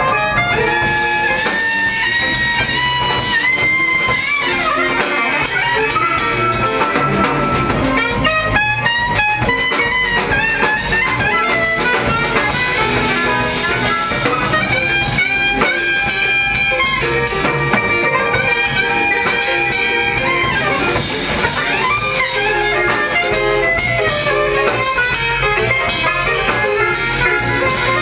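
Live jazz band playing: a straight soprano saxophone carries the melody in held and moving notes over guitar and a drum kit.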